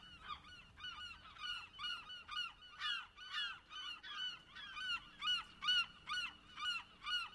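Geese honking, a steady run of overlapping calls about two a second, fairly faint.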